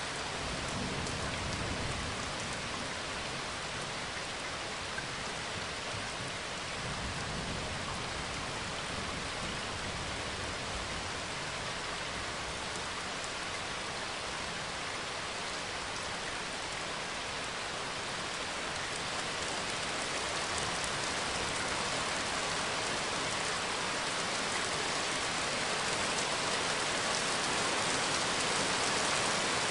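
Steady rain falling, with a low rumble of distant thunder near the start; the rain grows a little louder near the end.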